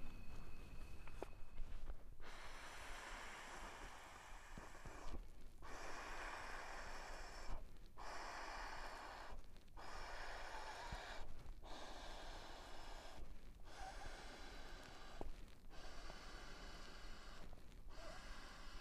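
A person blowing up an inflatable camping pillow by mouth: about eight long, breathy blows, each followed by a short pause for breath.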